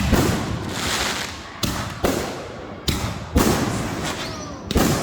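Fireworks going off in quick succession: about six sharp bangs in five seconds, each fading out in a noisy tail before the next.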